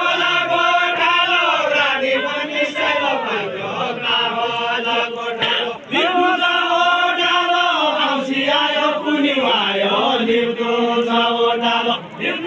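Deuda folk singing in a chanting style: voices holding long, drawn-out sung lines that bend in pitch, with short breaths about six seconds in and near the end.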